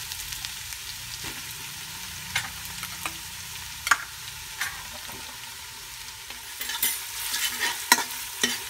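Grated carrot sizzling in hot sunflower oil in a stainless-steel stockpot, frying steadily. A spoon knocks against the pot a few times, then scrapes and clicks more often from about seven seconds in as the carrot is stirred.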